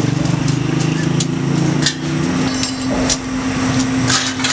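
Steel teaspoons clinking as they are handled and dropped in bunches into a metal pan, a few sharp clinks spread through, over a steady low motor hum whose deeper part stops about halfway through.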